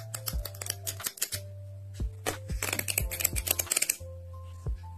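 Sheets of a paper pad flicked one after another under a thumb: a run of quick papery ticks, densest in a fast riffle about two and a half to four seconds in, over background music.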